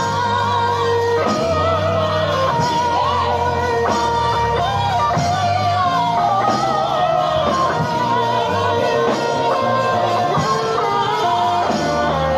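Live worship band music: an electric guitar plays a lead melody of bent, wavering notes with vibrato over a steady bass line, with singing.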